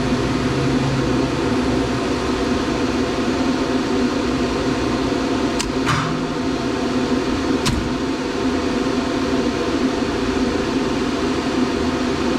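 Elevator machinery running with a steady mechanical hum. Two sharp clicks come about six and eight seconds in.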